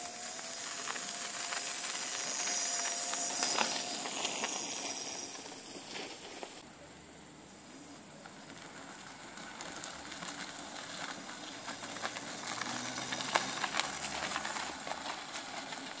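Electric scooter with a 1500-watt hub motor riding up and passing close by. Its faint motor whine and tyre noise grow louder over the last few seconds, with scattered clicks and crunches from the road surface.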